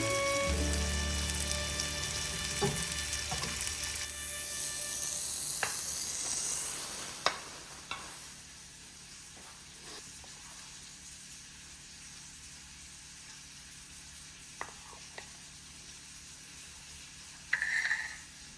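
Food sizzling in a frying pan, with a few sharp clicks of utensils against the pan. The sizzle is loudest in the first seven seconds or so, then drops to a faint hiss. A louder short clatter comes near the end.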